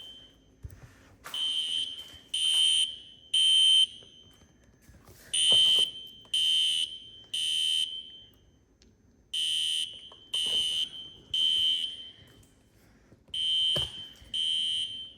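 System Sensor SpectrAlert Classic fire alarm horn sounding in the temporal code-3 evacuation pattern. It gives three short buzzy blasts, pauses about a second and a half, and repeats.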